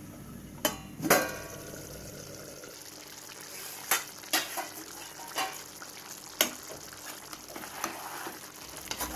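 A metal pan lid is taken off with two ringing clanks about a second in. Then chicken in onion-tomato masala sizzles in the pan while a spoon stirs it, knocking against the pan several times.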